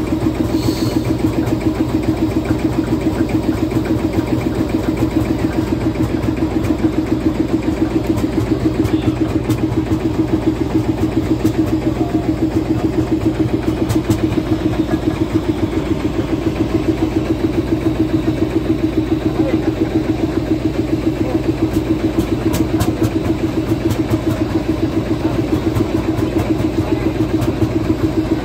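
Landini hot-bulb (testa calda) tractor's single-cylinder two-stroke engine running at a steady slow idle, an even, regular stream of exhaust beats.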